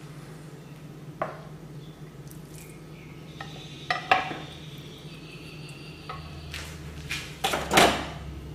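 Clinks and knocks on a stainless steel mixing bowl on a wooden board. The bowl rings for a second or two after a clink about four seconds in, and there are a few louder knocks near the end, over a low steady hum.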